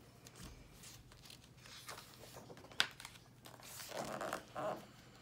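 A page of a large hardcover picture book being turned by hand: soft paper rustling and sliding, with one short tap nearly three seconds in.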